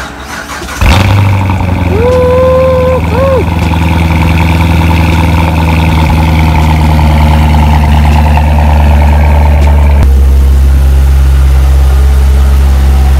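2017 Corvette Z06's supercharged 6.2-litre LT4 V8 cranking briefly and catching under a second in, then running loud and steady at idle on its first start after sitting about a year in a salvage yard. About ten seconds in the engine note settles lower.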